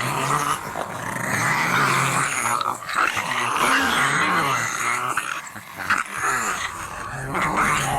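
A horror sound effect of a pack of zombie dogs: several dogs growling and snarling at once, their low growls overlapping and wavering in pitch, with sudden sharper outbursts about three and six seconds in.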